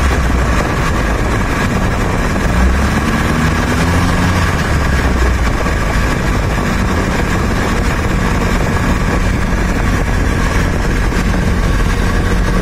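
Gasoline car engine idling steadily.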